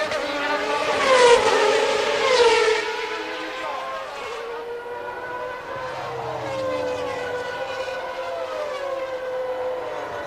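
Several early-1990s Formula One cars' high-revving engines. Two pass close, each with a falling pitch, about one and two and a half seconds in, then several engines run on at fairly steady revs.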